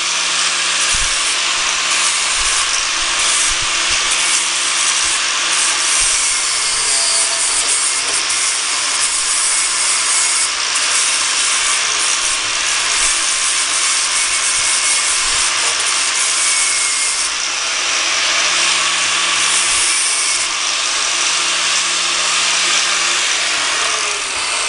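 Electric angle grinder fitted with a flap disc, grinding and smoothing the edges of a metal bracket: a steady motor hum under a loud, dense hiss of the disc against the metal. The motor spins down and stops near the end.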